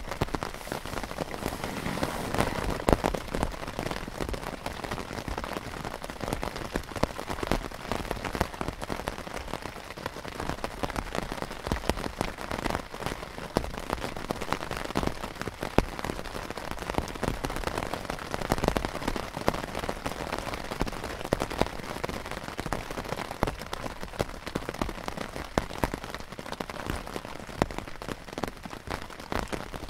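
Rain falling on the canvas of a Polish army poncho tent, heard from inside: a dense, steady patter with many sharper individual drop hits.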